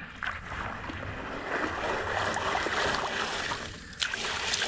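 Creek water and gravel swishing in a wooden-framed mesh sifter as hands scrub the material across the screen, with small clicks of stones; loudest through the middle, with a sharper click near the end.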